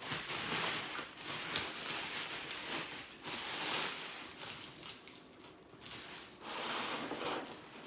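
Bubble wrap rustling and crinkling as it is handled and pulled off, in several stretches with brief lulls between.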